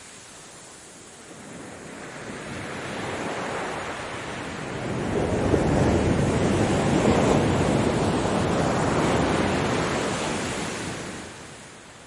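Ocean surf: a wave washing in. The rush builds over a few seconds, stays loud for about five seconds, then dies away near the end.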